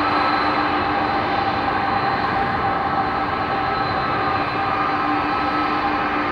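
Airbus A310-300's twin turbofan engines at taxi power: a steady jet whine of several held tones over a rushing noise as the airliner taxis by.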